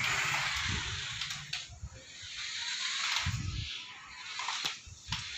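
Toy remote-control car driving fast, its small motor and wheels giving a hissing whir that swells and fades a few times, with a few light clicks.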